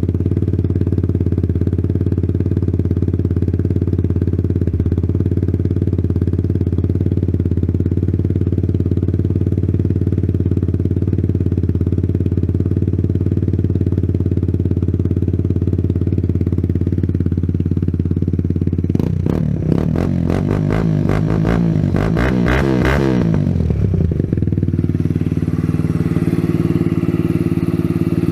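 Kawasaki Z125 Pro's single-cylinder engine, breathing through a Yoshimura exhaust, idling steadily, then revved in a string of quick throttle blips for about five seconds before settling back to idle.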